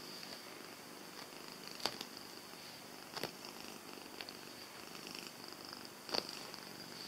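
Domestic cat purring steadily, with three short sharp clicks about two, three and six seconds in.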